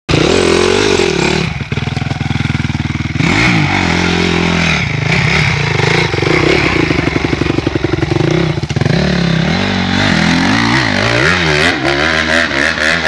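Honda CRF250 dirt bike's four-stroke single-cylinder engine revving up and down, then pulling away under throttle with quick rises and falls in pitch.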